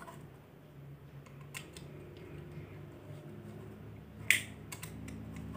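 A screwdriver voltage tester and a plastic wall switch being handled. There are faint taps, then one sharp click about four seconds in as the tester tip is pushed into the switch's terminal hole, with a few smaller clicks just after.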